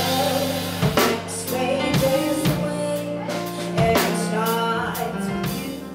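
A woman singing a soul song into a microphone, backed by a live band with drum kit and keyboard. The music fades down near the end.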